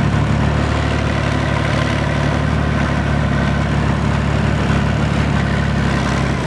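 BVP-01 infantry fighting vehicle's UTD-20 V6 diesel engine running steadily while the vehicle drives, heard from on top of the hull.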